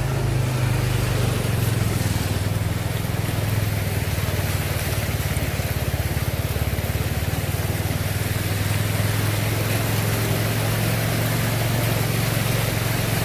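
A motor vehicle's engine running steadily, a constant low drone with road noise over it.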